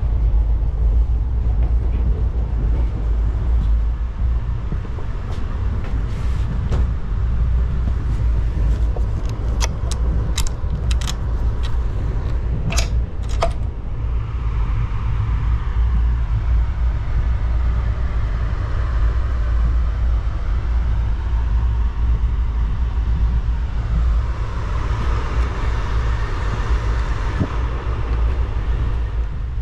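Steady low rumble of an Indian Railways sleeper coach on the move, heard from inside the compartment. About ten to fourteen seconds in, a cluster of sharp metallic clicks comes from the compartment's metal door latch being handled.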